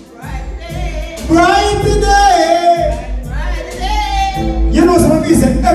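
Live reggae music with a heavy bass line, and a singer holding long, wavering sung notes over it.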